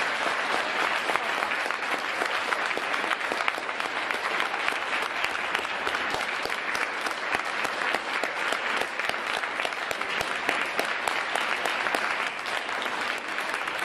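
Audience applauding: sustained clapping from a room full of people, some of them standing.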